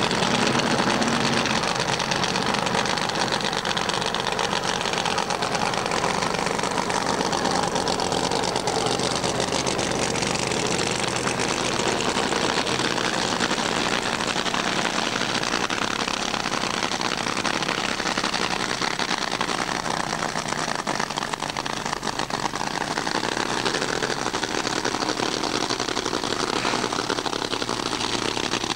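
Supercharged drag-racing engines idling steadily at the start line.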